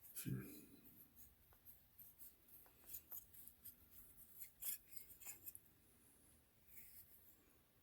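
Faint handling noises: scattered small clicks and light rubbing as a wet, rust-soaked metal part is turned over in the hands, with a dull thump just after the start.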